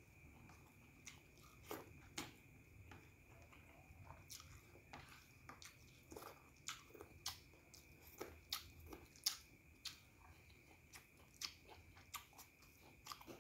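Faint close-up eating sounds: chewing and lip smacks, a scatter of soft irregular clicks as scraps of food are eaten from the fingers and the fingers licked. A faint steady high whine runs underneath.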